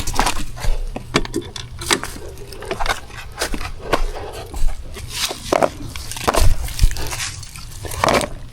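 Footsteps crunching through dry leaves and twigs: irregular crackling steps, one or two a second, over a low steady rumble.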